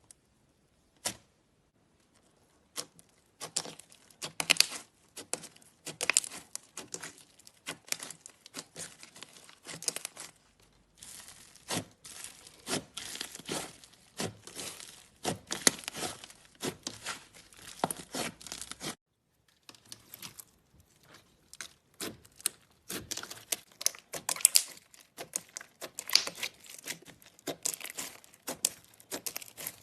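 Slime being squished, stretched and poked by hand, making dense irregular crackling and popping clicks. The crackling stops briefly about two-thirds of the way through, then resumes.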